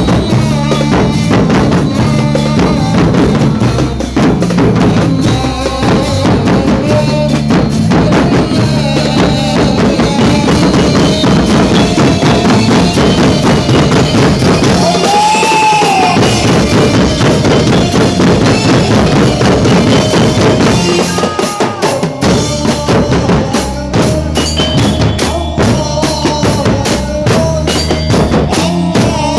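Loud music with a pounding drum beat and a steady repeating bass line, with a short rising-and-falling tone about halfway through.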